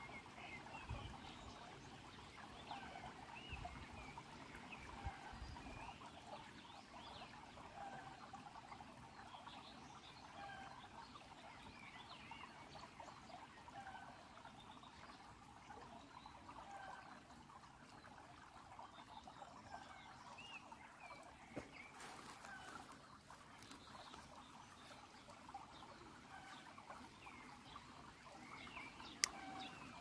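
Faint trickle of a shallow stream running over pebbles: a steady light rush of water with many small gurgling plinks.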